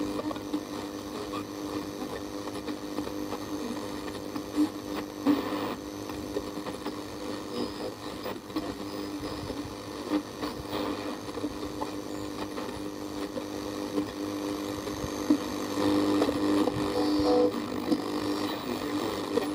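Sony CXA1619 receiver board on the shortwave band putting out static with a steady buzzing hum and occasional crackles: noise on the band caused by electromagnetic interference.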